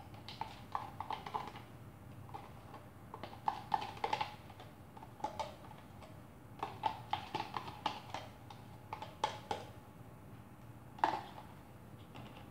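A spoon scraping and tapping against a plastic cup and the blender jar while spooning blueberry jam in: irregular clusters of light clicks and knocks, with one louder knock about 11 seconds in.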